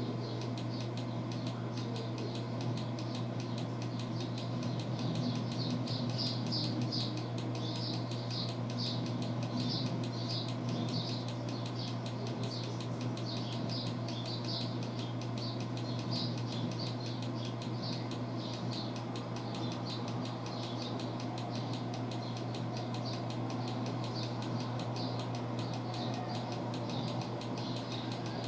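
A steady low electrical hum with a faint, high chirping that repeats about twice a second.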